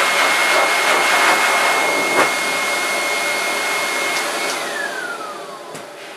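Hose-type pet blow dryer running with a steady rush of air and a high whine. About four and a half seconds in it is switched off and the motor winds down, its whine falling in pitch as the air noise fades.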